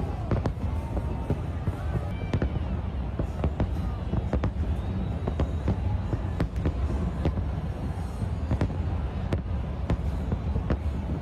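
New Year's fireworks going off, many sharp bangs at irregular intervals over a continuous low rumble.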